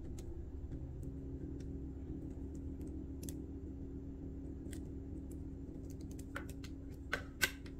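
Small handling clicks and taps as fingers work fishing line and metal swivels around a plastic ballpoint pen, sparse at first and bunching into a quick run of sharper clicks near the end. A steady low hum runs underneath.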